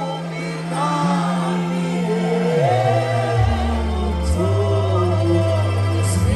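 Gospel worship music: a solo voice singing a slow melody with vibrato over sustained low chords, which step down to a deeper bass about halfway through.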